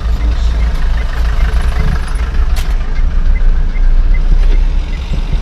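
Low, steady rumble of a car idling, heard from inside the cabin while it stands still in traffic, with one sharp click about two and a half seconds in.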